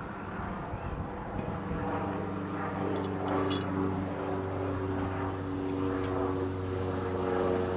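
Electric motor and propeller of a Fokker Dr.1 RC model triplane in flight, running at a steady drone with a faint high whine above it. The drone sets in about two seconds in, after some wind rumble on the microphone, and grows slightly louder toward the end.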